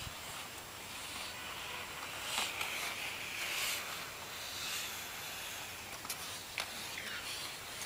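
Inline figure skate wheels (Synergy 89A, 72 mm) rolling and scraping on a hard tennis-court surface: a hiss that swells and fades with the skater's strokes and turns. A few sharp clicks come about six to seven seconds in.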